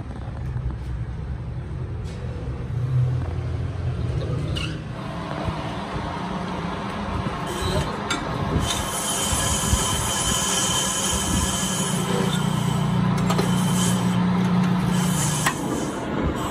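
Metalworking machine running on metal: a steady low motor hum, joined about five seconds in by a steady metallic squeal and a high hiss, with a few sharp clicks.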